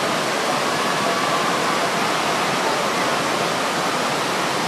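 Steady rush of water sheeting up the sloped surface of an indoor surf simulator, a constant, even roar of flowing water.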